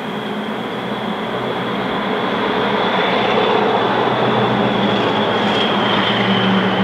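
A steady mechanical drone with a high, thin whine over it, swelling over the first few seconds and then holding.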